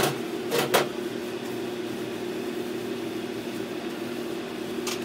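Steady mechanical hum of kitchen equipment, with a couple of brief swishes under a second in.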